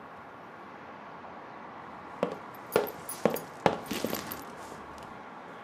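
Quiet room tone, then about two seconds in a quick run of six or so sharp clicks and knocks over about two seconds, with lighter rustling between them.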